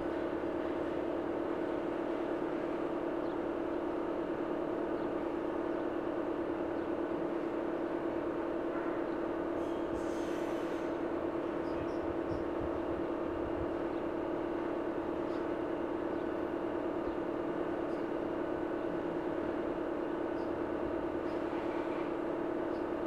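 A steady low hum that holds one pitch without let-up, with a brief soft rustle about ten seconds in.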